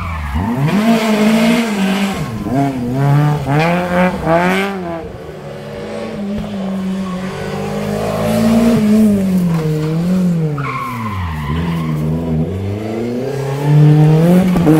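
Rally car engine at race pace, its revs rising and falling through gear changes, with a quick run of sharp rev blips a few seconds in. The tyres squeal about two-thirds of the way through.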